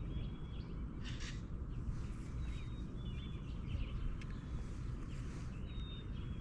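Birds calling with short, thin, high whistled notes several times over a steady low rumble.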